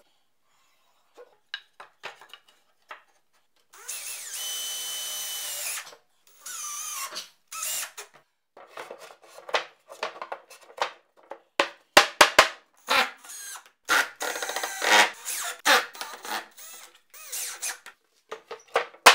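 Cordless drill running: a steady whine that spins up about four seconds in and runs for about two seconds, then a shorter run. After that come wooden knocks and clatter as plywood boards are handled and laid into a wooden frame, with a few loud knocks in the middle.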